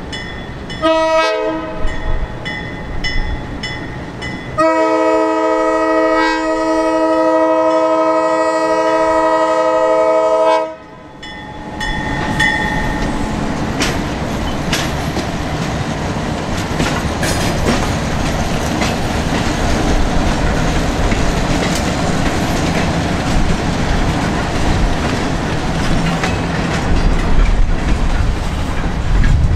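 Buffalo Southern Railroad diesel locomotive's air horn sounding for a grade crossing: a short blast about a second in, then one long held chord of several notes lasting about six seconds. After that, the locomotive and a string of loaded covered hoppers roll past close by, with the engine rumbling and the wheels clattering over the rail joints.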